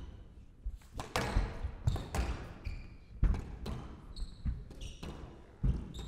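Squash rally: the ball cracks off the rackets and the court walls in sharp, irregular strikes about a second apart, with short high squeaks from the players' court shoes on the floor.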